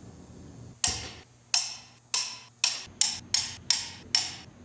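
Click-type torque wrench clicking as cylinder head bolts reach torque: about eight sharp clicks with a short ringing tail, coming faster toward the end.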